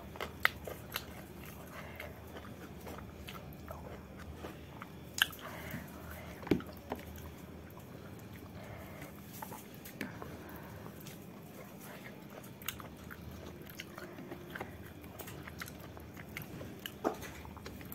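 Close-up eating sounds: a woman chewing food, with a few short sharp clicks and taps as her fingers pick food from a plate.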